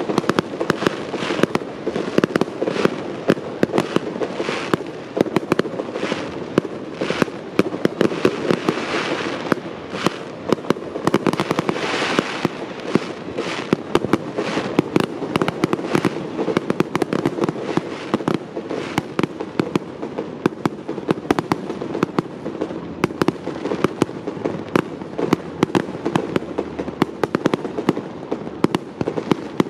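Fireworks display: a continuous rapid string of aerial firework bursts and crackles, several sharp bangs a second without a pause.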